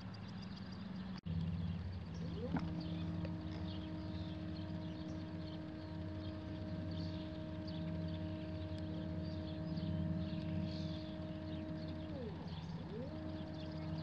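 Astro-Physics Mach2GTO mount's motors slewing the telescope at go-to speed: a steady whine over a low hum, rising in pitch as the slew spins up a couple of seconds in, holding, then winding down near the end and spinning up again.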